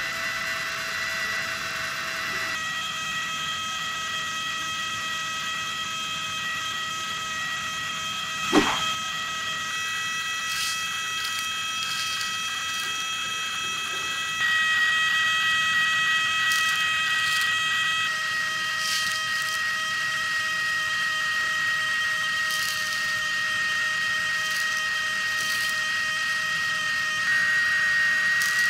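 Small toy DC motor running with a steady high-pitched whine as it drives a string belt and flywheel on a miniature juicer model. A single sharp knock sounds about eight and a half seconds in.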